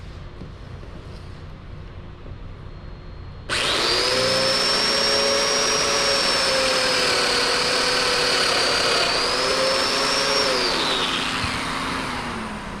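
A high-speed power tool motor starts abruptly about three and a half seconds in and runs with a steady high whine for about seven seconds, its pitch dipping briefly under load, then winds down.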